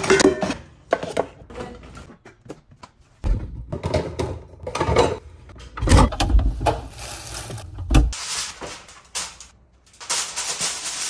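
Kitchen handling sounds: dishes and a rubber mat clattering at a dish rack, then irregular knocks and heavier thumps as the fridge is gone through, and a steady rustle of aluminium foil near the end.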